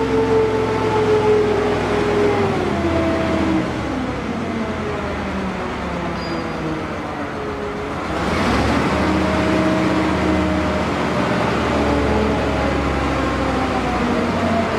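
Mobile crane's diesel engine running as it moves a bundle of tires hung from its hook. The engine's pitch sinks over the first few seconds, then rises again about eight seconds in and holds.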